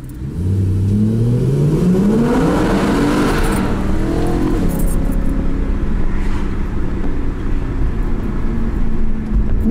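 BMW E92 M3's S65 V8 engine heard from inside the cabin while accelerating. The revs climb for the first three to four seconds, then it runs at a steady drone.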